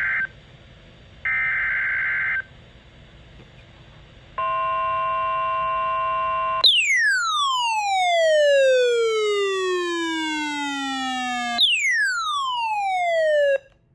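Emergency Alert System alert opening: two short bursts of screeching SAME header data tones about a second apart, then a steady electronic tone for about two seconds, then two long falling electronic sweeps, the first longer than the second.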